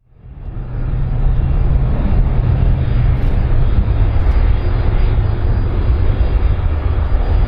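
Airplane engine noise: a loud, steady low rumble that fades in over the first second and then holds level.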